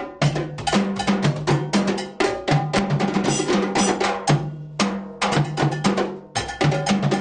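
Percussion ensemble playing a fast rhythm: many quick drum strokes over a metal bell pattern, with two low-pitched drums alternating beneath.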